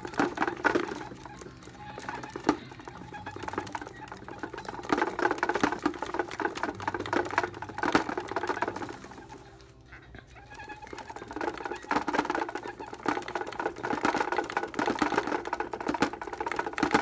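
Hedgehog running fast on a plastic exercise wheel: a continuous rapid rattle of clicks from the spinning wheel and its feet, over a steady whirr. It goes briefly quieter about ten seconds in, then picks up again.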